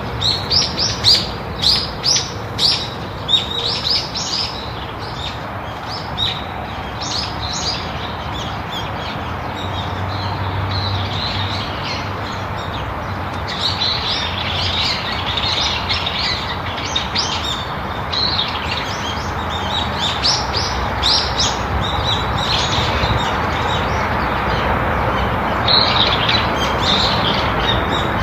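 Small birds chirping, many short high chirps in rapid bursts that thin out for a while and then pick up again, over a steady background hiss.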